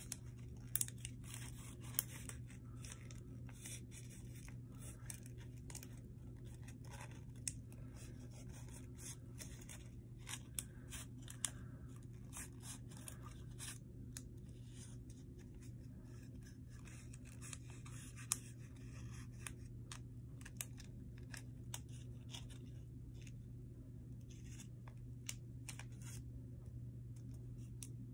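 Sheet of paper being handled and folded by hand: faint scattered crinkles, rustles and sharp little creasing clicks, over a steady low hum.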